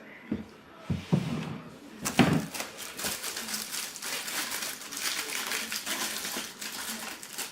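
Three knocks within the first two and a half seconds, then steady crinkling and rustling of packaging being handled during flat-pack chair assembly.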